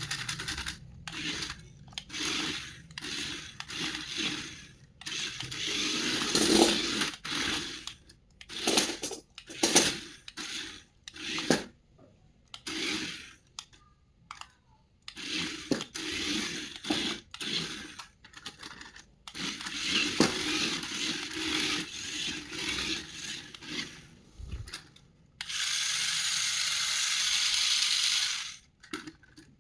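Toy packaging being handled and opened: irregular scraping, rustling and tearing of cardboard and plastic in short bursts with brief pauses, then a steady hiss for about three seconds near the end.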